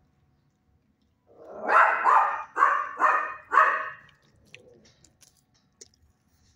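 Dog barking, a quick run of about five barks starting about a second and a half in.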